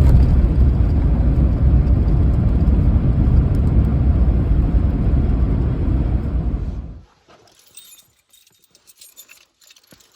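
Steady, loud vehicle rumble that stops abruptly about seven seconds in, followed by faint clicks and rattles.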